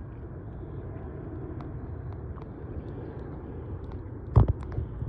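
Steady low outdoor rumble of open-air lake ambience, with a few faint clicks and a short cluster of louder knocks near the end.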